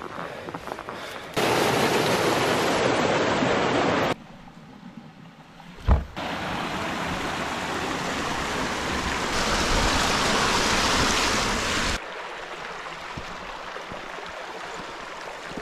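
Small moorland stream rushing and splashing over rocks, a steady water noise that changes level abruptly several times, with one short low thump about six seconds in.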